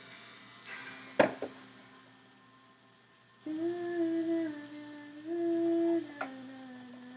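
A person humming a few long, held notes of a tune, starting about halfway through. There is a sharp click about a second in and another just before the last, lower note.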